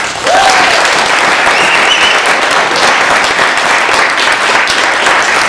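Audience clapping and applauding, loud and steady, with a short whoop from someone near the start.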